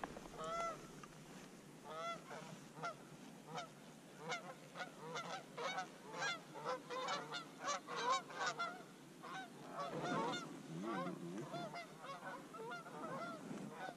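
A flock of Canada geese honking in flight: many short, overlapping calls, thickest in the middle.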